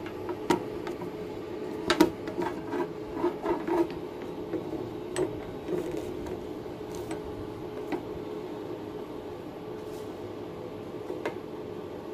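Steady hum of a switched-on 200 A inverter arc welding machine, with a cluster of knocks and clicks about two seconds in and a few more scattered later as the electrode holder, rod and metal pieces are handled.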